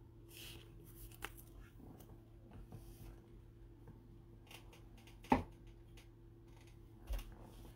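Faint rustling and small clicks of trading cards being handled with nitrile-gloved hands, with a sharper tap about five seconds in and another near the end, over a steady low hum.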